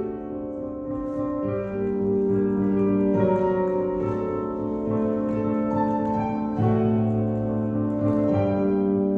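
Slow classical music accompanying a ballet adagio: sustained chords that change every second or two.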